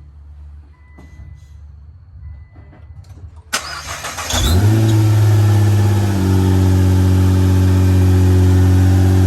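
Nissan GT-R's twin-turbo V6 cranked by the starter and catching about four seconds in, flaring briefly before settling into a steady idle; it is being run to purge air and excess coolant after a coolant-tank refill.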